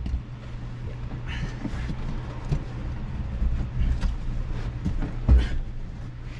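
Rustling and scattered knocks from hands working at a car's rear seat and its clips, with a single heavier thump about five seconds in, over a steady low hum.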